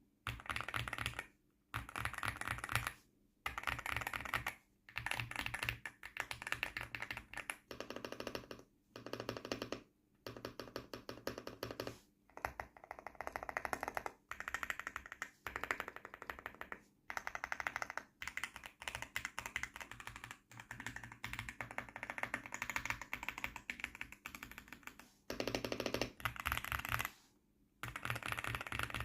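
Stock LEOBOG Hi8 mechanical keyboard with factory-lubed Rambo switches being typed on: fast runs of keystrokes in bursts of a second or two, with short pauses between them.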